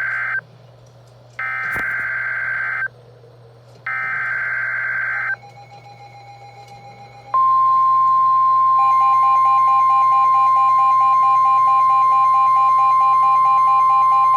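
Emergency Alert System SAME header data bursts: harsh warbling digital screeches about a second and a half long with short gaps between them. They are followed, about seven seconds in, by a loud, steady single-pitch warning alarm tone, the NOAA Weather Radio 1050 Hz tone that announces a warning.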